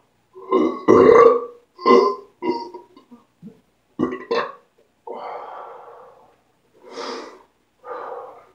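A man belching over and over: a run of short, loud belches, the loudest about a second in, then a longer, softer one in the middle and two more near the end.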